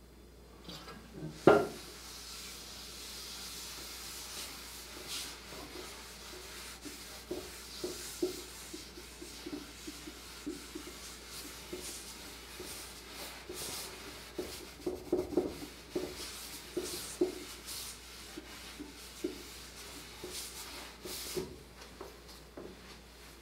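Rag wiping naphtha across a freshly sanded wooden chest lid: an irregular cloth-on-wood rubbing with many soft knocks. This is the solvent wipe-down after sanding, lifting oils and showing the grain. There is one sharp knock about a second and a half in.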